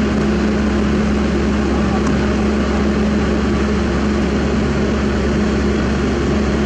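Heavy diesel engine running steadily with an unchanging low hum.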